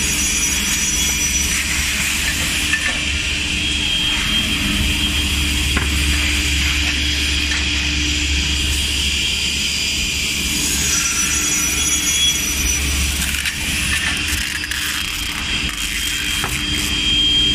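HC3300 PC2S CNC beam saw running: a steady machine drone with a low hum and a hiss, and a few faint clicks.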